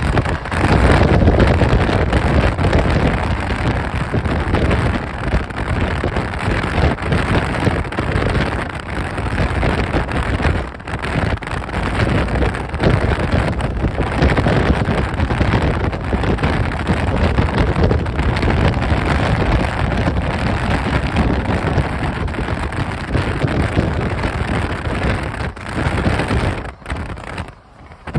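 Wind buffeting the microphone and road noise from a Mercedes-Benz E63 AMG driving at highway speed, a loud steady rush heavy in the low end. It drops away briefly a few times, most deeply near the end.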